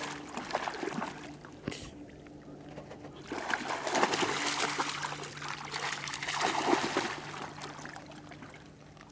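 A small dog wading through shallow lake water, its legs splashing and sloshing unevenly; the splashing is loudest in the middle and fades as the water gets deeper near the end.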